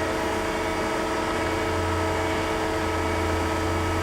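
TOS Hostivar BUB 32A/1500 universal cylindrical grinder running: a steady machine hum with several fixed tones.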